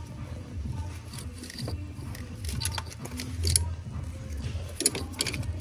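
Scattered light clicks, taps and rustles of a gloved hand and tools working among engine parts, with a few sharper clicks and a low handling rumble.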